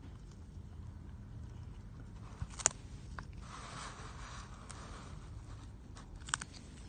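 Handling noise: two sharp clicks, one about two and a half seconds in and one near the end, with a short rustle between them, over a low steady hum.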